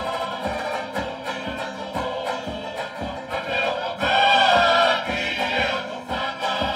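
Live Tongan tau'olunga accompaniment: a group of singers over strummed strings and a steady drum beat. The singing swells louder about four seconds in.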